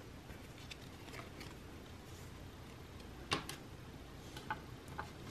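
Photocards being handled and set down on a table: a few light taps and clicks over quiet room tone, the sharpest about three seconds in.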